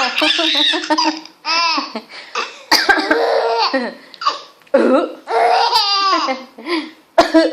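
A baby laughing at someone's coughing, in about five bursts of high-pitched giggles with short breaks between them.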